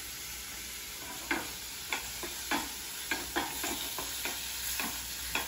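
Ground pork sizzling in a hot frying pan, stirred with a wooden spatula. From about a second in, the spatula scrapes and knocks against the pan in a quick, uneven run of strokes over the steady sizzle.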